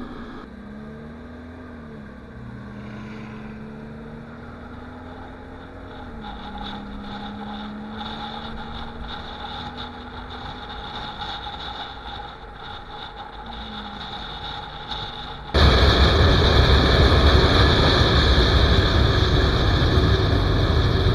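A car driving, heard from a camera mounted on its outside: road noise with an engine note rising and falling, then about fifteen seconds in a sudden jump to a loud, steady rush of wind and road noise.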